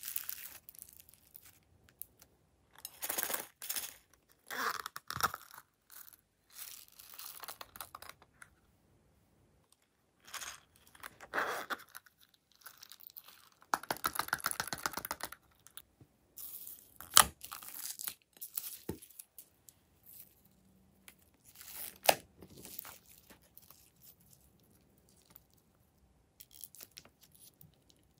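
Hands squeezing and kneading foam-bead slime and glossy slime: irregular crackling, squishing bursts with short pauses between them, and a couple of sharp clicks.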